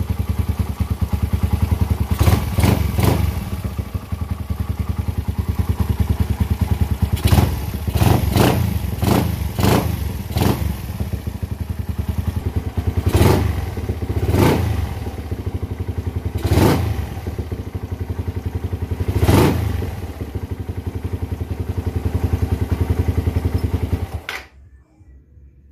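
Suzuki four-stroke single-cylinder motorcycle engine running with a reground intake camshaft, its throttle blipped about a dozen times in short revs over a steady idle. The owner judges the engine noise normal after the cam change. The engine sound cuts off suddenly near the end.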